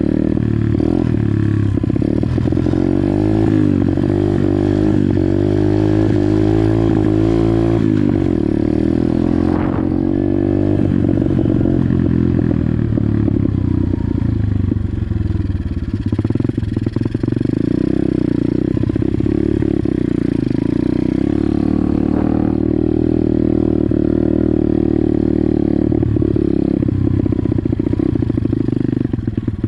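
Pit bike engine under way, revving up and dropping back several times in the first ten seconds, then running at a steadier speed.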